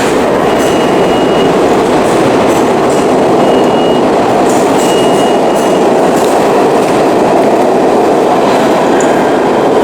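New York City subway train running through the station, a loud steady rumble of the cars with a few short high squeals from the wheels or brakes.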